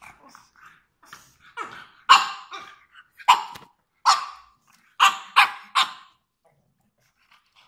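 A dog barking: about six short, sharp barks over some four seconds, the last three in quick succession, with softer sounds leading up to them.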